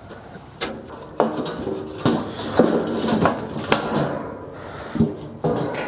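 Steel drums and their lids being handled: a series of knocks and scrapes, several with a short metallic ring, as the barrels of a drum retort kiln are set up.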